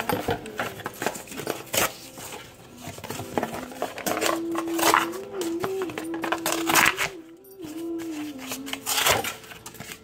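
Corrugated cardboard being ripped apart by hand, several short tearing and rustling rasps. A quiet melody plays under it, one wavering held line through the middle.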